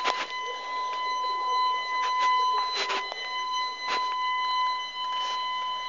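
A steady, high-pitched continuous tone, like a held electronic beep, that never breaks. Brief clicks and rustles from the phone being handled come through it several times.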